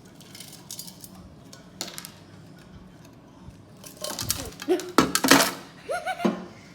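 Ice cubes clinking and clattering onto a plate resting on top of a jar. The clinks are light at first, with a louder clatter of several knocks about four to five seconds in. Short voice-like sounds are heard about four and six seconds in.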